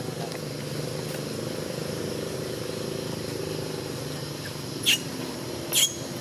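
A steady low motor hum, with two short, sharp, high squeaks from a baby macaque about five and six seconds in.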